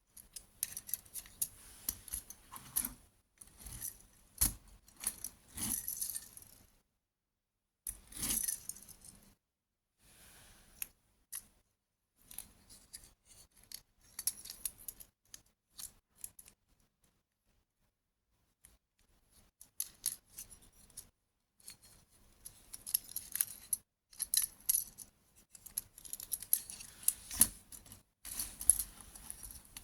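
Small toy vehicles and their packaging being handled: irregular clicks, light clinks and rustling in bursts, with a couple of quiet pauses, the longest about two-thirds of the way through.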